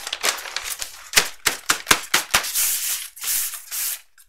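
Sandpaper rubbing over a perforated paper pattern, mixed with sharp crackles and snaps of the stiff paper. This knocks off the fibres left standing by the punched holes. The sound comes in hissy strokes, and the crackles bunch up about a second or two in.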